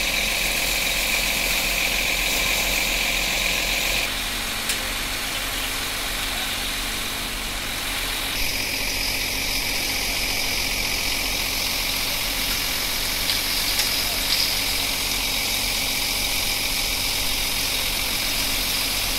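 Steady drone of a fire engine running at the scene, with a hiss of water spray over it. The mix shifts abruptly twice, about four and eight seconds in.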